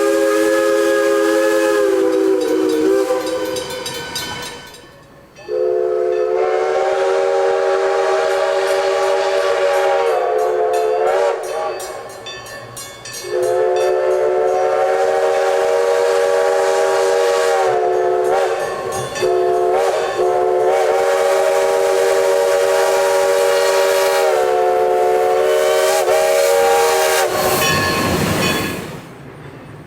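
Northern Pacific 5-chime steam whistle blown in two long chime blasts, the second held for about fourteen seconds with several brief dips in pitch where the valve is worked. Before it, the last chord of a Lunkenheimer 3-chime whistle dies away. A short rush of steam comes near the end.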